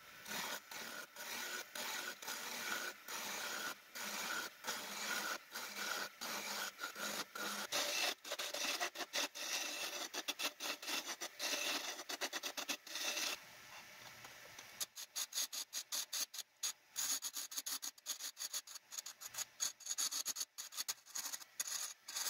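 Turning chisel cutting a spinning oak spindle on a wood lathe: a hissing, scraping cut that breaks off and resumes again and again as the tool is moved along the work, with a short quieter lull a little past the middle.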